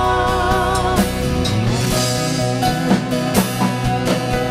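Worship band music: drum kit and guitar playing between sung lines, with a held, wavering sung note dying away about a second in.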